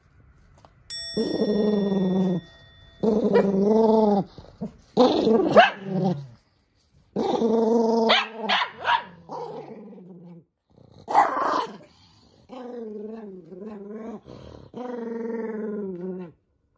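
Toy poodle growling in repeated bouts of a second or two each, with a few louder, harsher snarls in the middle and softer growls toward the end: it is angrily protesting a sock being pulled onto its paw.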